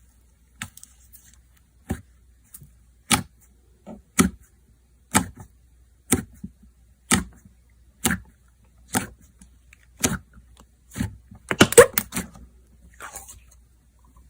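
Slime being pressed and poked by hand, giving sharp wet pops about once a second, then a quick flurry of pops and crackles near the end.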